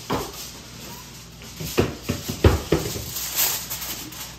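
Aluminium foil being taken off the roll and handled to cover a baking dish, with a few sharp clicks and knocks, the loudest about two and a half seconds in.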